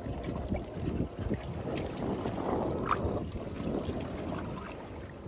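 Wind buffeting the microphone on a boat at sea, with choppy water splashing and sloshing below; an uneven rumbling hiss with no engine tone or reel clicking standing out.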